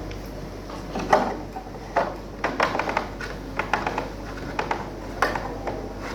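Irregular knocks and clattering of hard objects, a dozen or so sharp hits at uneven spacing.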